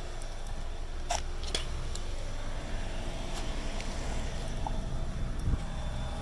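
2015 Nissan Altima's four-cylinder engine idling steadily and quietly, warming up just after a fresh oil change. Two light clicks a little after a second in.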